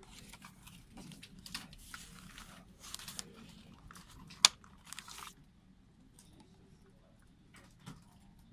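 Paper rustling as the pages of a CD booklet are turned and handled, then one sharp plastic click from the CD jewel case, the loudest sound, about four and a half seconds in as the disc is taken out; quieter handling follows.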